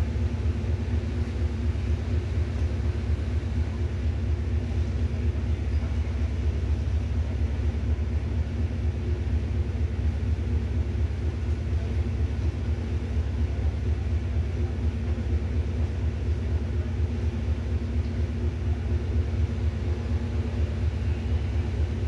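An idling engine: a steady low rumble with a fast, even throb and a faint hum over it, unchanging throughout.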